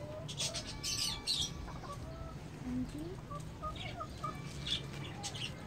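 Faint, scattered bird calls over a low steady hum.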